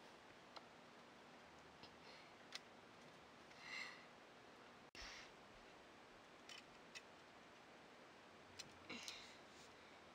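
Near-silent room tone with a few faint clicks and three short scratchy strokes of a felt-tip marker on a wooden board.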